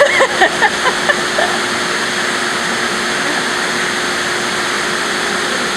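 Steady rushing roar with a faint steady hum from an aquarium wave machine's equipment, running between wave dumps.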